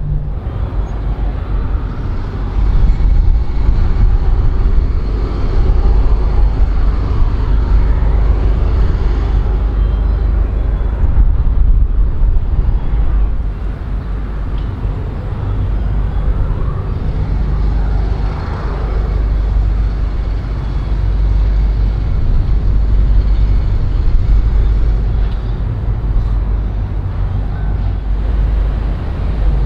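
Steady low rumble of engines and passing traffic, swelling and easing a little, with no sharp sounds.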